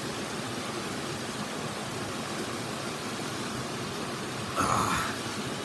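Mountain stream rushing in a steady even hiss. About four and a half seconds in there is a brief, louder sound lasting about half a second.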